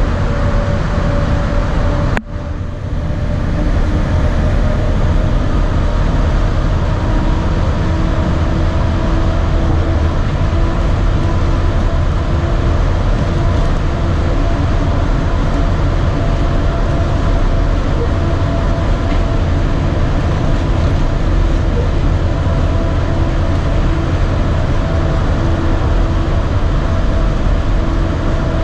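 Walt Disney World monorail train running at speed, heard from inside the cabin: a steady low rumble with a constant tonal hum from its drive. About two seconds in, the sound drops out briefly.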